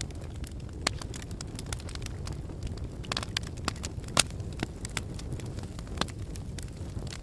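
Burning logs in a fireplace crackling and popping: irregular sharp snaps over a low steady rumble of the fire, with one loud pop about four seconds in.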